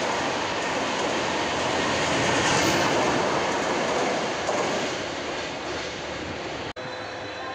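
Humsafar Express coaches running past at speed with a steady rail rumble, which fades off after about four seconds as the last coach clears. Near the end the sound cuts abruptly to a quieter, steady background hum.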